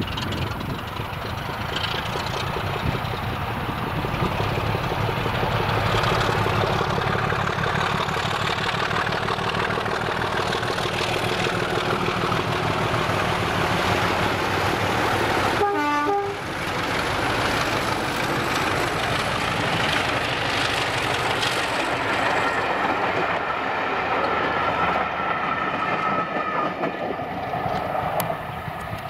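Heritage British diesel locomotives, a Class 25 and a Class 33 with Sulzer engines among them, passing under hard power with their engines thrashing, along with the clatter of the train's wheels on the rails. The sound builds as the train approaches, stays loud as it goes by, and fades near the end.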